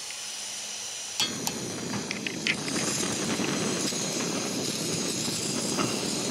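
Primus gas canister stove hissing with unlit gas, then a sharp igniter click about a second in as the burner lights and goes on burning with a steady rushing flame sound, with a few more clicks soon after.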